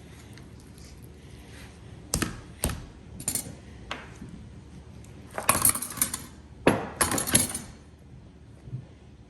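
Slime being worked by hand, giving sharp clicks and pops: a few single pops, then two longer runs of crackling about five and seven seconds in.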